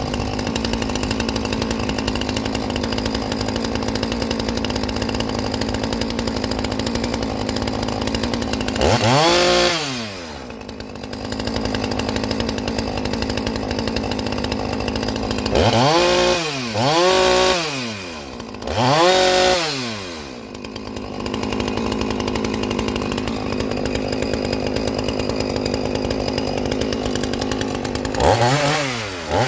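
A two-stroke chainsaw engine running steadily, then revved up and let fall back: once about nine seconds in, three quick times between about sixteen and twenty seconds, and again near the end. The saw is new and being tuned, and is still running a little rich.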